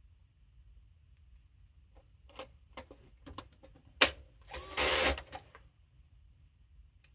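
Small clicks and taps of screws and metal casing being handled, then a sharp click and a short burst of an electric screwdriver driving a screw into the mixer's chassis about five seconds in.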